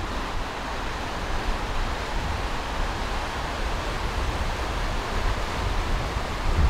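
River water rushing through rapids, a steady even wash of noise, with gusts of wind rumbling on the microphone.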